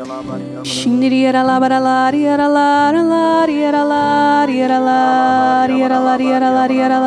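Slow, chant-like worship singing: voices hold long notes that move step by step over a sustained chord. A short breathy hiss comes about a second in.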